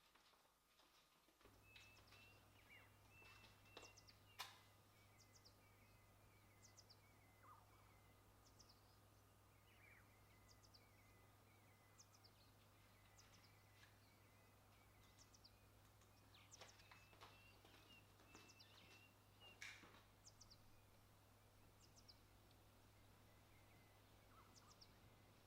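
Near silence: faint room tone with a steady low hum that comes in about a second and a half in, and scattered soft ticks and small chirps.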